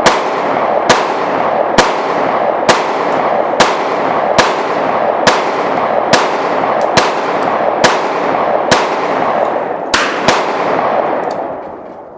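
Firearm shot after shot at a steady pace of about one a second, a dozen or so in all, over a constant din of range noise that dies away near the end.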